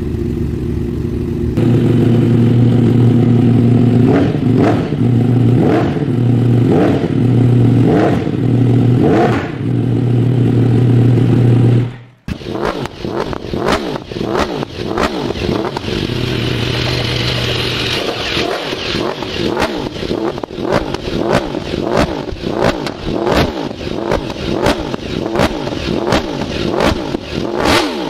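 Yamaha R1 inline-four fitted with a loud aftermarket GSPR exhaust, idling and being revved in short blips about once a second. After a sudden cut about twelve seconds in, it runs again with quicker revs and many sharp pops.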